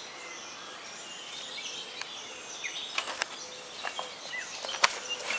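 Outdoor ambience with small birds chirping now and then, and a few sharp clicks, the strongest near the end.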